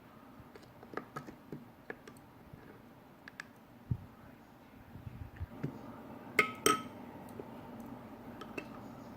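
Dishware being handled: scattered light taps and clicks, then two sharp ringing clinks close together about six and a half seconds in, as papdi crisps are dipped in a bowl of curd and set on a plate.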